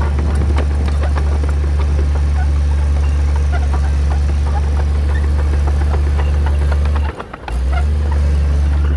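Motor grader's diesel engine running steadily with a deep, loud drone, with scattered crackles over it. The sound drops out for a fraction of a second about seven seconds in, then returns.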